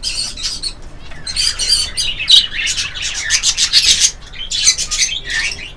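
Many small caged birds chirping and chattering at once, a dense high-pitched twittering of overlapping calls.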